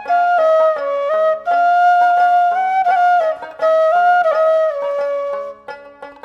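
Background music: a melody of held and stepping notes over a steady low drone.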